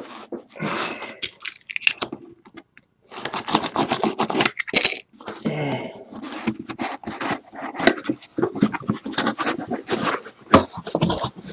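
A cardboard box being torn open and handled: irregular tearing, scraping and crunching of cardboard in quick bursts.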